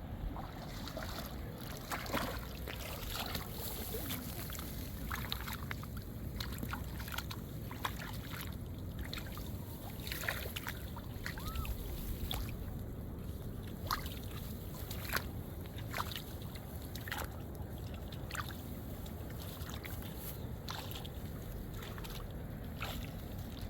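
Water sloshing and splashing in small, irregular bursts over a steady low rumble.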